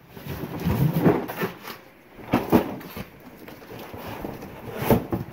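Rummaging through a box of assorted items: irregular knocks, clunks and rustles, with sharper knocks about two and a half seconds in and near the end.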